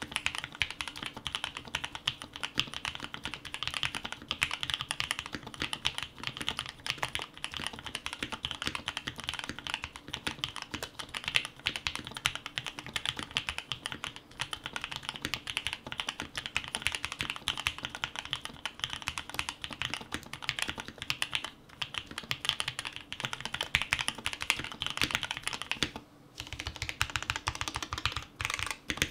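Fast continuous typing on an Odin Nova65 mechanical keyboard fitted with linear Gateron Yellow KS3 switches: a steady stream of key presses, with a short pause about 26 seconds in.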